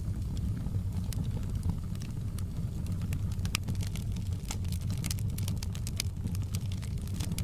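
Fire crackling in a fireplace: scattered sharp pops and snaps over a steady low rumble of the flames.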